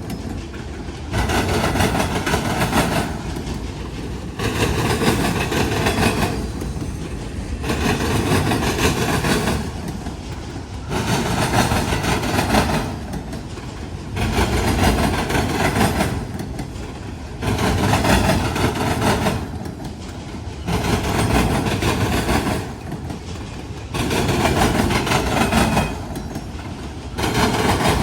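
Freight cars of a passing train clattering over a railroad diamond crossing. A loud burst of wheel bangs comes about every two seconds as each car's trucks cross the frogs.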